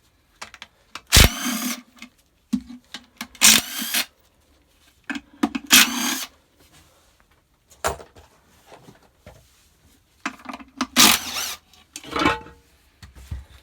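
Impact gun undoing the 13 mm bolts of a classic Mini's clutch outer cover in about five short bursts, with small metal clicks between them.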